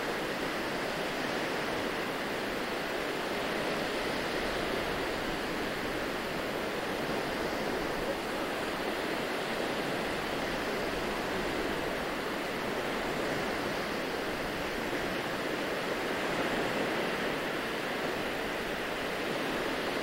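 Small waves washing onto a sandy beach: a continuous, even hiss of surf.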